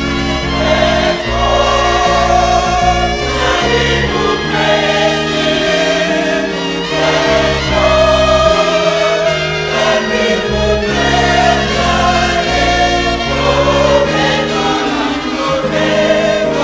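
Closing gospel music: a choir singing in sustained chords over a steady bass line.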